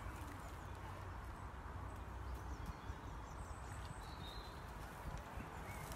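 Faint steady outdoor background noise with a low rumble, and a brief faint high chirp around the middle.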